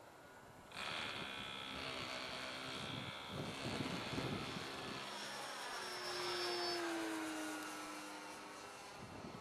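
Radio-controlled model airplane's engine buzzing as it flies past, starting abruptly about a second in, its pitch falling as it goes by.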